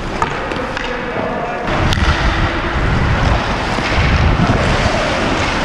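Wind rushing over a helmet-mounted action camera's microphone as a hockey player skates, with the rumble getting louder from about two seconds in and a sharp click about two seconds in.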